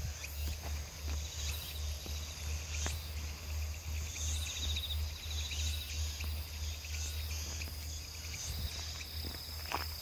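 Insects trilling in high, finely pulsed chirring, over a steady low rumble.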